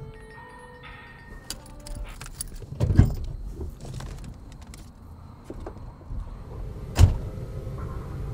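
Someone getting out of a car: light clicks and rattling, a heavy thump about three seconds in as the door opens, then the car door slammed shut about seven seconds in.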